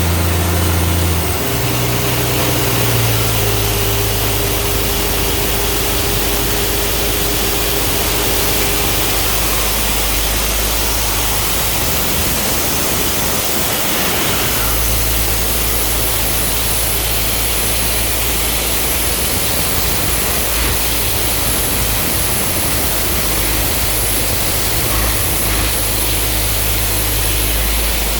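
Ingersoll Rand 21-bar, 750 cfm portable diesel air compressor running steadily, a low engine note under a broad hiss. The engine's low tone shifts about a second and a half in and again around fourteen seconds in.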